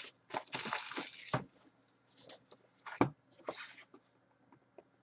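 Crinkling and tearing of the plastic wrap on a sealed trading-card box as it is handled and opened, with a single sharp knock about three seconds in as the box is set down on the desk.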